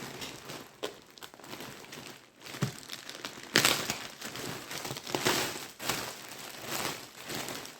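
Irregular rustling and crinkling of something being handled, loudest in a burst about three and a half seconds in.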